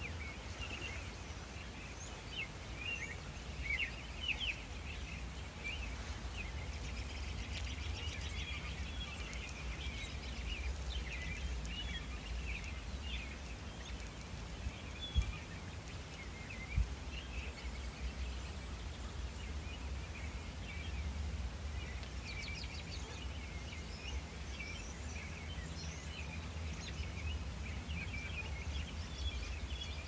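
A chorus of many songbirds singing and calling at once: dense, overlapping chirps and trills, busiest in the first half, over a low steady rumble. Two brief knocks stand out about halfway through.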